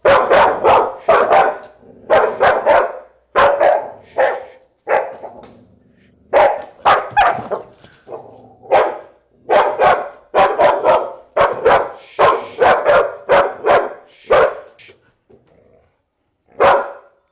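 Young Australian Shepherd barking repeatedly in quick volleys of several barks, then a pause near the end and one last bark. It is fearful, suspicious barking at an unfamiliar object held out to it.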